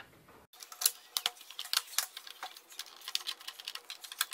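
Screwdriver driving screws into a plastic RC car transmitter housing: a fast, irregular run of light clicks and ticks.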